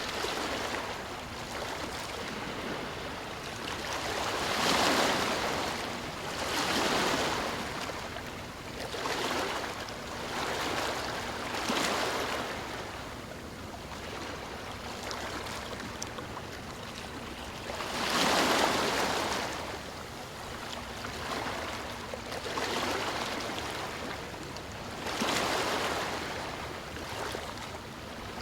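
Sea waves breaking and washing onto a shore, each surge swelling and fading every few seconds over a steady hiss of surf, the biggest one about two-thirds of the way in.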